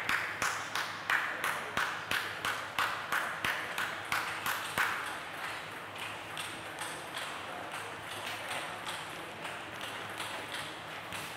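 Celluloid-type table tennis ball clicking against bats and table in a quick, even run of about three sharp clicks a second, loud for the first five seconds, then fainter clicks carrying on.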